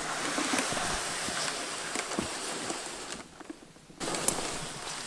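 Dry grass and brush rustling and crackling as a loaded plastic sled is dragged through it and people push through the undergrowth on foot. The sound thins out for a moment about three seconds in.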